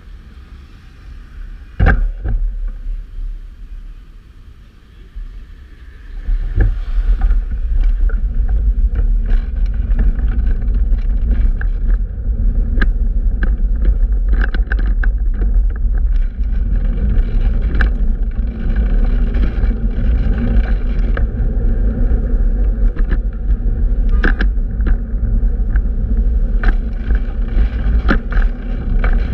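Street noise from a fixed-gear bicycle riding through city traffic: a steady low rumble that gets much louder about six seconds in, with scattered clicks and knocks.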